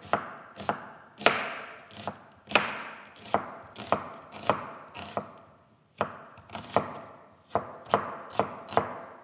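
Chef's knife slicing an onion into thin strips on a wooden cutting board: a steady series of sharp knocks of the blade on the board, about one and a half a second, with a short pause a little past halfway.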